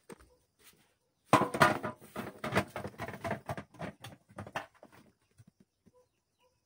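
Plastic bag crinkling and rustling as it is handled, a quick run of rustles starting about a second in and dying away after a few seconds.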